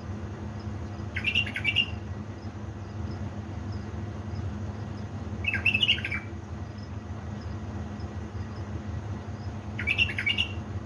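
Bulbul singing three short, fluty phrases about four seconds apart, over a steady low hum.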